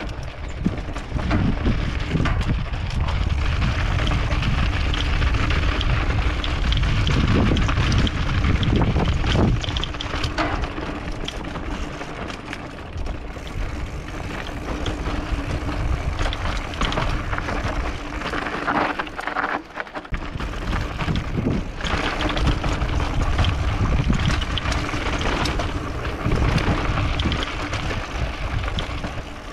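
Wind rushing over a helmet-mounted camera's microphone during a fast downhill mountain-bike ride on dirt singletrack, with frequent knocks and rattles from the bike hitting bumps and rocks. The rush eases briefly about twenty seconds in.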